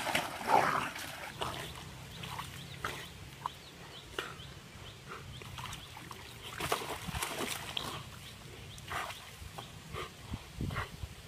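Two dogs fighting: short snarls and scuffling, loudest in the first second, then sparser bursts in short clusters.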